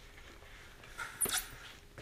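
Brief handling noise about a second in: a rubbing squeak as the rocket's airframe tube is turned in its cradle.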